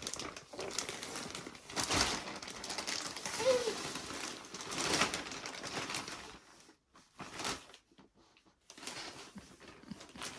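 Rustling and crinkling handling noise, as of plastic or paper being moved about, in uneven bursts that thin out into short quiet gaps after about six seconds.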